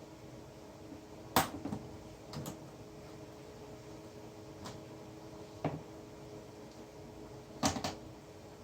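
A handful of sharp, irregular clicks and knocks, the loudest about a second and a half in and again near the end, over a steady low hum.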